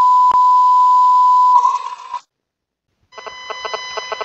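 Loud, steady electronic beep tone that cuts off about one and a half seconds in, breaking into a short burst of noise. After about a second of silence, a quieter buzzing electronic tone starts with a fast flutter.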